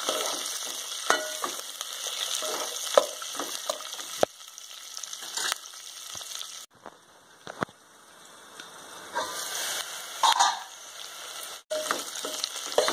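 Sliced onions, peas and green chillies sizzling in hot ghee and oil in an aluminium pressure cooker, stirred with a steel ladle that clinks and scrapes against the pot. The sizzle breaks off briefly a couple of times.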